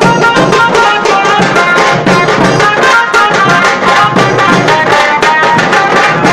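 Music with fast, dense drum beats under a steady melody.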